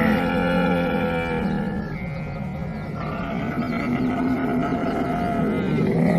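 Camel vocalising with long, low calls: one fades out early on, and another starts about three seconds in and grows louder toward the end.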